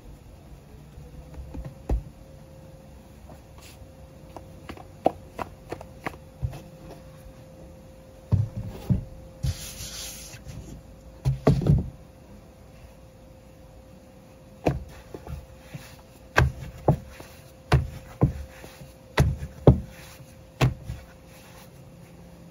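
Hands working pizza dough: pressing and stretching it on a floured wooden board, then slapping and stretching it by hand, a run of sharp slaps and knocks that come thickest in the second half. A short hiss about ten seconds in.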